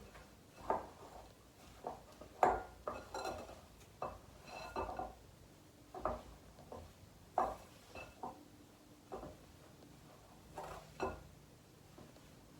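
Spoon scraping and knocking against a mixing bowl in irregular strokes while stirring a thick mixture of oats and coconut into melted chocolate. The loudest knock comes about two and a half seconds in.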